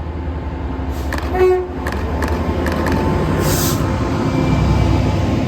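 Train passing with a steady low rumble, a short horn toot about a second and a half in, a few sharp clicks, and a brief hiss near the middle.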